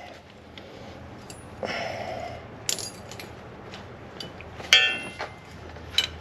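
Metal clinks and knocks of a tractor's three-point hitch lower link and hitch pins being fitted by hand, with one sharp ringing clank near the middle and a brief scrape about two seconds in. A low steady hum runs underneath.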